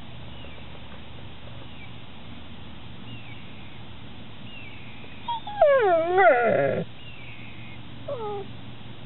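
Black Labrador/Pit Bull mix dog whining: a wavering whine that slides down and up in pitch, lasting about a second and a half from about five seconds in, then a shorter falling whine about two seconds later.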